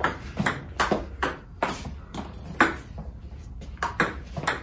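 Table tennis rally: a celluloid-type ping-pong ball clicking off the racket, faced with XIOM Omega VII China Guang rubber, and the table in quick alternation, a few sharp clicks a second.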